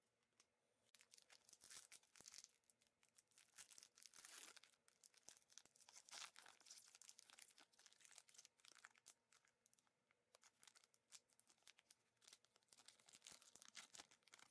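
Epoch J.League trading card pack wrapper crinkling and tearing as it is ripped open by hand. The crackle starts about a second in and runs in rapid bursts until just before the end.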